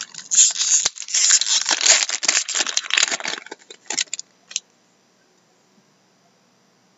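Foil wrapper of a hockey card pack being torn open and crinkled, a dense crackle for about three and a half seconds, followed by a few light clicks as the cards are handled.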